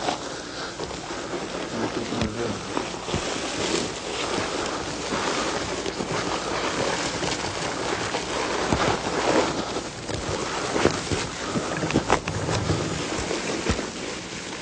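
Wind buffeting the microphone, a steady rushing noise, with scattered knocks and rustles of handling throughout.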